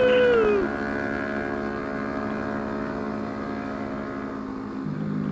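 Yamaha MT-25 parallel-twin engine running under way from the rider's seat. The engine note swells up and falls back right at the start, then holds steady at cruising speed, dropping slightly in pitch near the end.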